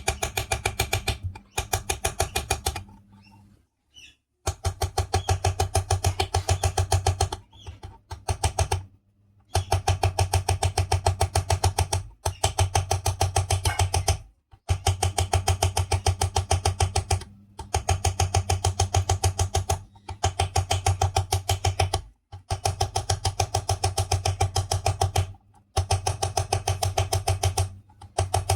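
A metal file raking in quick short strokes, about six a second, over the worn bearing seat of a ceiling fan's housing. It goes in runs of two to three seconds with brief pauses, cutting marks into the seat so the new bearing will grip tightly instead of sitting loose and rattling.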